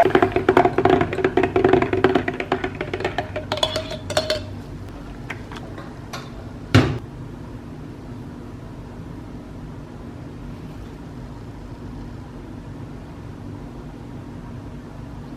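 Rapid clattering taps and scraping of a utensil against a mixing container for about four seconds as the thick soap batter is worked, then a single sharp knock, followed by a low steady hum.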